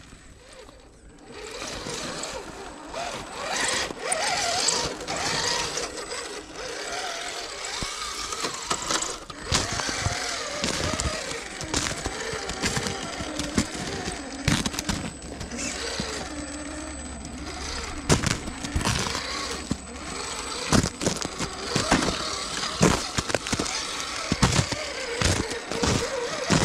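Traxxas TRX-4 Sport RC crawler driving over snow and ice: its electric drivetrain whines, rising and falling with the throttle, while the tyres crunch through icy snow, with sharp cracks and crunches coming thick and fast in the last third.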